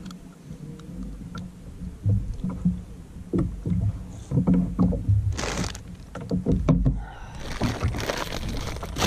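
Soft low bumps of handling, then from about seven seconds in a dense crackle as a plastic snack wrapper is torn open and crinkled.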